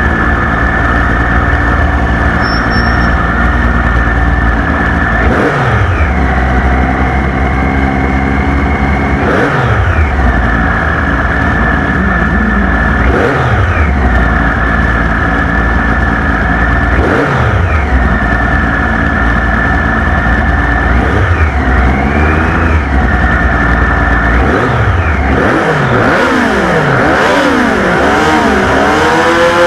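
Triumph Daytona 675R's inline three-cylinder engine idling, with the throttle blipped every few seconds so the revs jump up sharply and fall back. Near the end the blips come more quickly and the revs are then held up, the bike readied for the race start.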